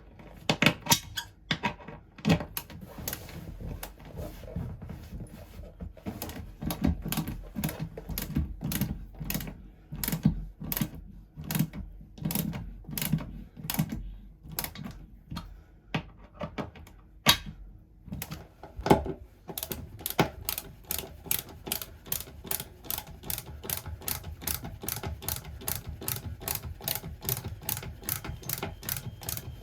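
Sharp clicks and knocks of hand-tool work, irregular at first; about two-thirds of the way through they turn into a steady, fast run of clicks, several a second.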